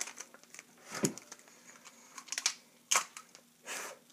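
Rigid plastic RAM packaging being pried and bitten open: irregular short clicks and crackles in a handful of clusters.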